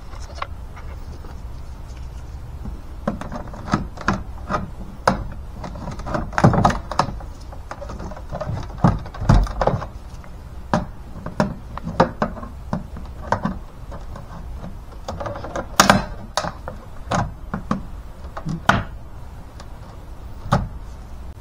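Plastic door trim panels on a car door being pried and handled: irregular sharp clicks, snaps and knocks, the sharpest about two-thirds of the way through.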